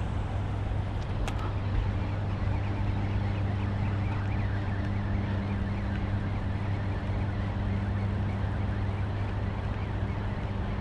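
Boat motor running steadily with an even, unchanging hum.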